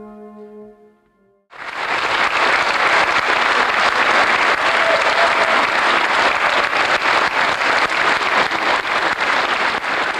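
A held trombone note fades away in the first second; after a brief silence an audience breaks into steady applause that goes on to the end.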